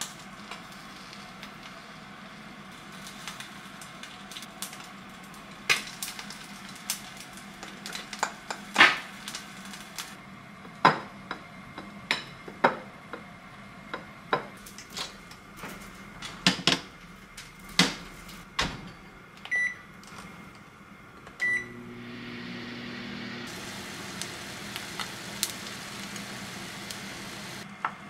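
A string of light clicks and knocks of dishes, lids and a rice paddle, then two short beeps from a microwave oven's keypad. With the second beep the microwave starts and runs with a steady hum.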